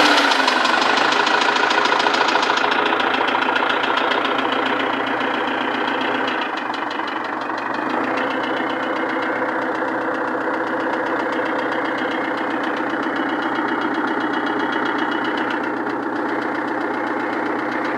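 Diesel engine of a Foton truck, a Chinese copy of a Perkins, idling with a steady valve knock clattering over the running. The knock comes from a sagged exhaust valve spring on the fourth cylinder; adjusting the valves did not cure it.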